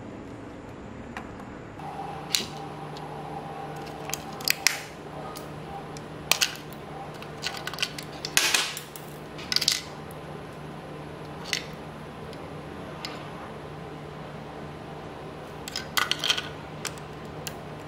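Irregular clicks and knocks of hard plastic and a metal-cased AA battery as the battery is handled and pushed into a small pistol-grip RC transmitter, with a cluster of clicks near the end. A steady low hum runs underneath from about two seconds in.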